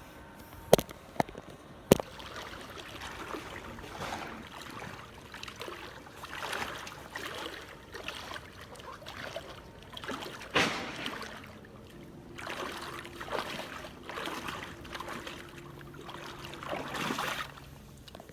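Floodwater sloshing and swishing with each stride of a person wading through it, pulling floating cases on a rope, with two sharp clicks near the start and one heavier splash about ten seconds in.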